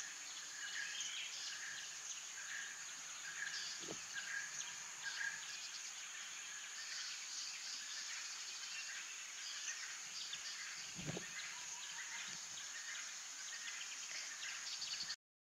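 Wild ambience: a steady high insect drone with a bird calling in short repeated notes about a second apart, and a couple of soft low thumps. It cuts off suddenly just before the end.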